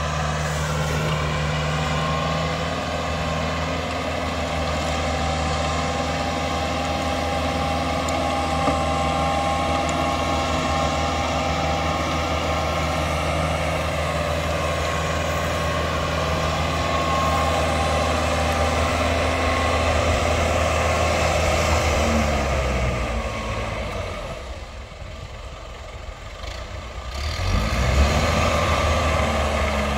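Kubota tractor's diesel engine running steadily under load, driving a rotary tiller with a ridger. About two-thirds of the way through the engine note falls and it goes quieter, then it revs back up near the end.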